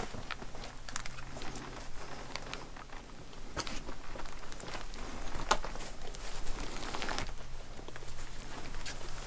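Hiking shoes stepping and scuffing on rough rock, with a hand brushing the rock face and clothing rustling: a run of short, irregular scrapes and clicks.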